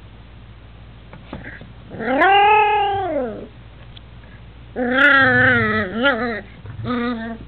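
Papillon puppy giving its first barks: three long, high, drawn-out bark-howls. The first, about two seconds in, rises and falls in pitch. The second, near the five-second mark, is longer and wavers. The third, at the end, is short.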